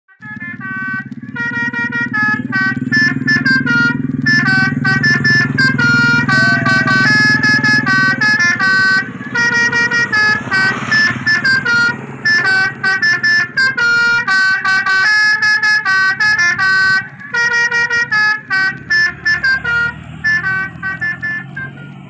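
Telolet horn on an odong-odong tourist train playing a fast multi-tone tune, its notes changing several times a second, with the vehicle's engine running low underneath.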